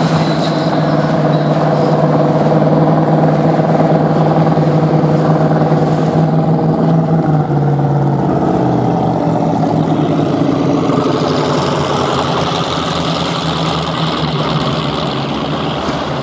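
Catamaran powerboat's engines running hard at speed as the boat passes close by, the steady engine note dropping in pitch about eight seconds in as it goes past. A rushing hiss builds over the last few seconds.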